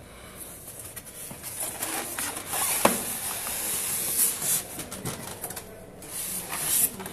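Polystyrene foam packing and a cardboard box being handled and rubbed as an electric scooter is unpacked, with plastic wrap rustling and a sharp knock about three seconds in.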